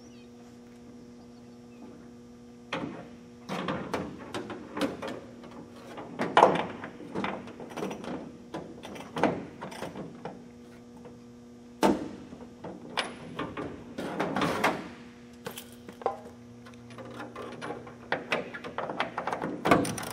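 Metal wrench and socket clinking and knocking against the wing-root attach fitting of a Cessna 150, starting about three seconds in, as the rear-spar attach cam bolt is turned to lower the wing's trailing edge and correct a wing-heavy roll. A steady low hum runs underneath.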